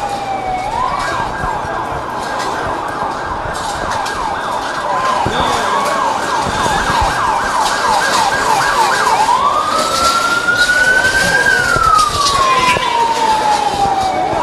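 Emergency vehicle siren. A falling wail switches about half a second in to a fast yelp of about three quick rising sweeps a second, then about nine seconds in goes back to a slow wail that rises and then falls.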